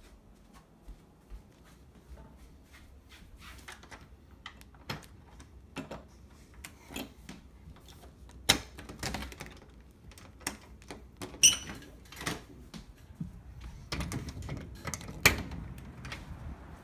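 Irregular taps, clicks and knocks against a door as a banana is bumped and pressed against it, with three sharper, louder knocks spread through the second half.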